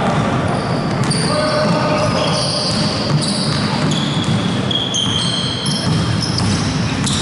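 Basketball shoes squeaking on a hardwood court, many short high squeaks one after another, over running footsteps and a basketball being dribbled, echoing in a large gym.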